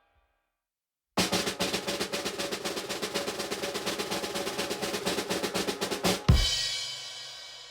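Snare drum roll starting about a second in and running for about five seconds, ending in one loud final hit that rings out and fades.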